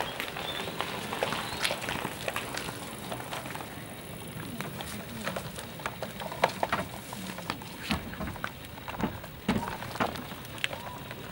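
Front wheel of a Baby Jogger City Elite stroller rattling as it rolls, giving irregular clicks and knocks; the rattle persists despite a repair.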